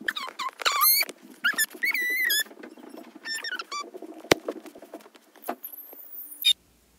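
A squeaky, high-pitched gibberish voice chattering in quick chirpy syllables, like Animal Crossing character voices, then a thin, very high squeal, a 'sad scream', near the end that cuts off suddenly.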